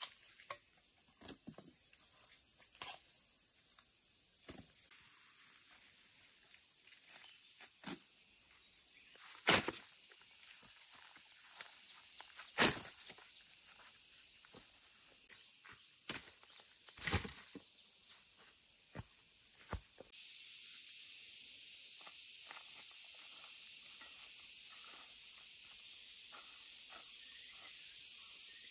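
A steady high insect buzz that grows louder about two-thirds of the way through, with scattered sharp knocks and crackles on top, three of them much louder than the rest.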